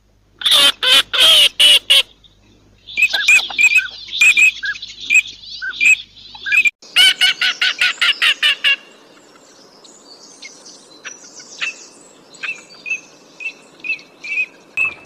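Eurasian teal calling, from several recordings joined together: loud runs of short, rapid calls near the start and again about seven seconds in, with repeated short whistled notes between them and through the second half, fainter toward the end.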